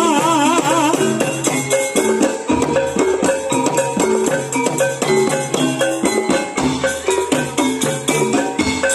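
Javanese gamelan music for a jathilan hobby-horse dance: drum strokes and ringing metallophone notes in a fast, steady rhythm, with a wavering held melody line that stops about a second in.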